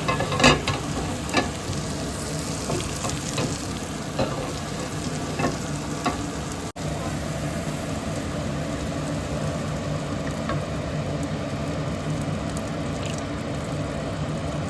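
Food sizzling in a frying pan, with the clicks and scrapes of a utensil stirring it in the first few seconds.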